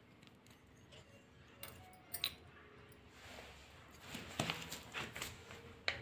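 Faint taps and scrapes of a knife blade on a wooden board as it cuts through a thin sheet of rice-flour dough. After a quiet second and a half come a couple of sharp clicks, then a longer stretch of scraping with a few sharper ticks.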